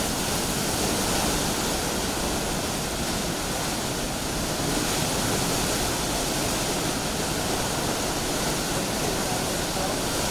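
Category 4 hurricane eyewall wind with driving rain, a steady dense rush of noise that holds without letup.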